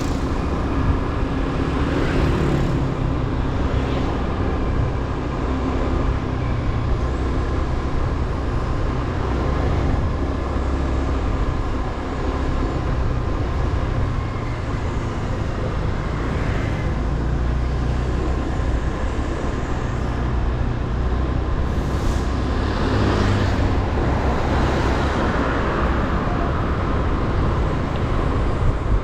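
Motorbike being ridden along a road: engine running steadily with road noise, swelling louder briefly a few times.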